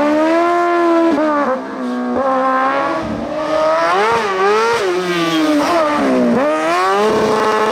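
A competition car's engine revving hard, its pitch climbing and dropping several times through gear changes and lifts off the throttle.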